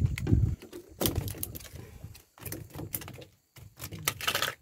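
Knocks, taps and rattles of a small freshly caught palometa being unhooked and flapping against the boat's hull, with heavier low thumps near the start and a louder rattling patch about four seconds in.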